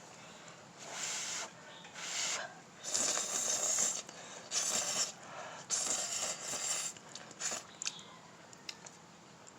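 Close-up slurping of noodles, a series of about six drawn-out slurps roughly a second apart, followed by a few short clicks.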